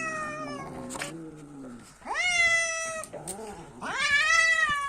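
Sphynx cat yowling in long, drawn-out calls, three in a row, while guarding a piece of meat it has taken from a dog.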